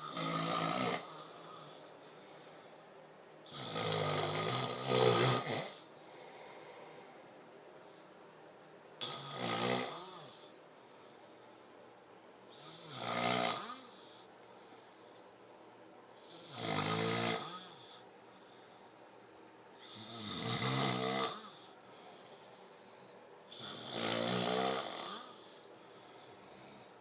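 A person snoring heavily: seven snores, one every three to four seconds, each lasting a second or two.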